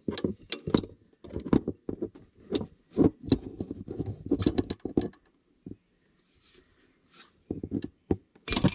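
Half-inch-drive ratchet with a 14 mm socket tightening the AC belt tensioner pulley bolt: a run of irregular metallic clicks and clanks that stops about five seconds in, then a louder metallic clatter near the end.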